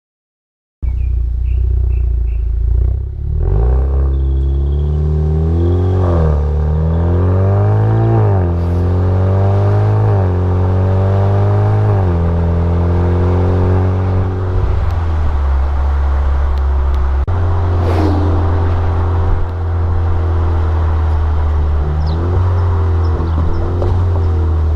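Alfa Romeo Stelvio with a Super Sprint full exhaust and race muffler, accelerating hard through several gears. The exhaust note climbs in pitch and drops at each upshift, about four times, then settles into a steady drone at cruising speed. It starts about a second in, and a brief whoosh comes near the middle.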